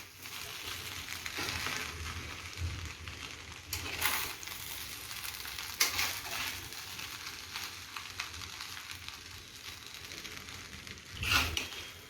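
Fried rice sizzling steadily in a hot cast-iron kadhai while a utensil stirs and tosses it. A few short scrapes or clinks of the utensil against the pan come through, the clearest about 4, 6 and 11 seconds in.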